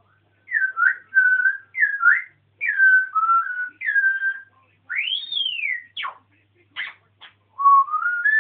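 African grey parrot whistling a string of pure, gliding notes, with one long whistle rising and falling about five seconds in, then three short, sharp down-swept chirps and a rising whistle near the end.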